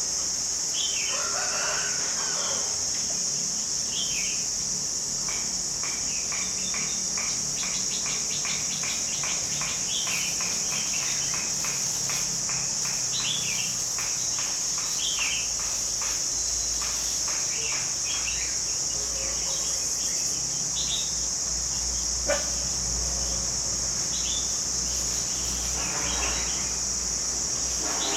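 Steady high-pitched insect drone with short bird chirps scattered throughout, and a rooster crowing near the start and again near the end.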